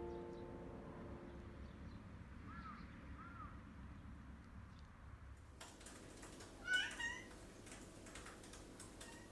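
Music fading out, then a quiet stretch with scattered faint clicks and a short animal call about seven seconds in. Two fainter chirps come earlier.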